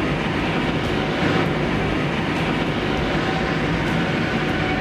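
Heavy military vehicle running: a loud, steady mechanical noise with a low hum, joined by a faint steady whine near the end.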